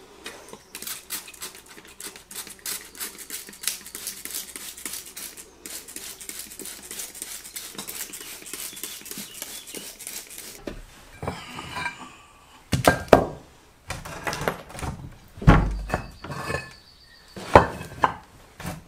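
Rapid hand scraping on a stone floor tile for about ten seconds, then stops. This is followed by a series of separate hard knocks and clinks as stone tiles are lifted and set down against each other.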